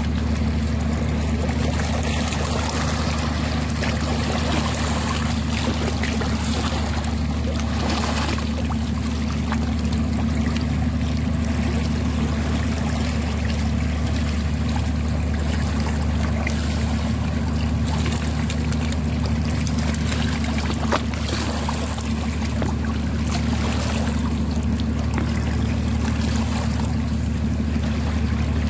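A steady low engine drone that holds one pitch throughout, under a constant hiss.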